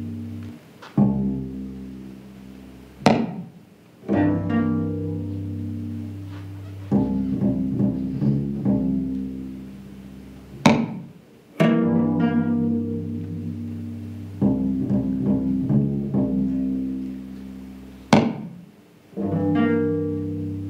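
Instrumental music in slow phrases of sustained low bowed and plucked strings, each phrase fading before the next starts, with a sharp accent about every seven and a half seconds.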